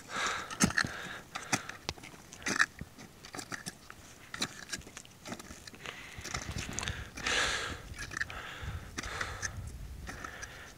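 Crampon footsteps crunching and scraping on the glacier's icy snow, an irregular run of short crunches, with a longer rush of noise about seven seconds in.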